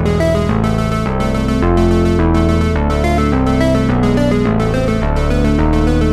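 Background music with synthesizer and keyboard, its notes and chords changing every fraction of a second.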